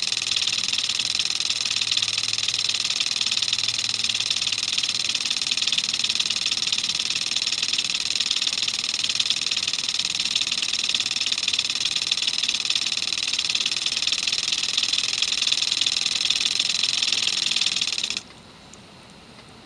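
Lawn sprinkler spraying water, a steady hiss that cuts off suddenly near the end as the motion detector times out and the washing-machine solenoid inlet valve shuts the water off.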